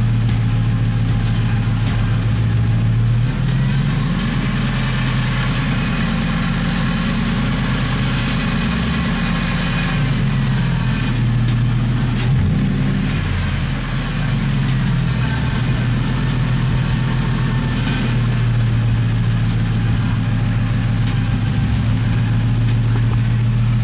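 Mercury Grand Marquis V8 engine idling steadily, its low hum shifting pitch slightly a few times.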